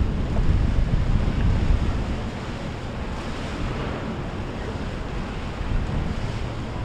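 Wind buffeting the microphone over the steady rush of water from passing boats' wakes, louder for the first couple of seconds.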